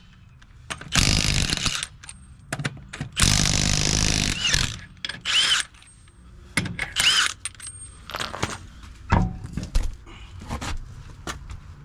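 Several loud bursts of tool or mechanical noise, each lasting about a second, with sharp metal clicks and knocks between them, during hands-on work on a pickup's rear brake assembly.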